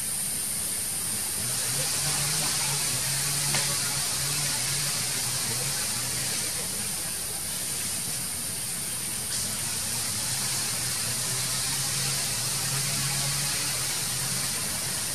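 Steady outdoor hiss with a strong high-pitched band, under a low hum that comes and goes.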